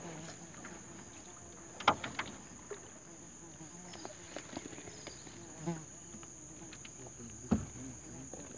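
Steady high-pitched drone of insects, with scattered knocks and rustles from a gill net being hauled by hand over the side of an aluminium boat. The two loudest knocks come about two seconds in and near the end.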